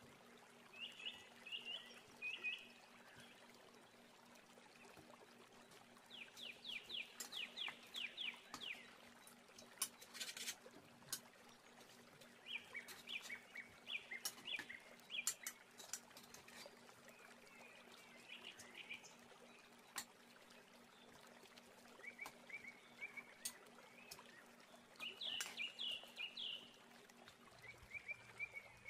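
Faint birds chirping in short runs of quick chirps, one run of about eight chirps around a third of the way in. A few sharp clicks of metal utensils against the steel pan are heard between them.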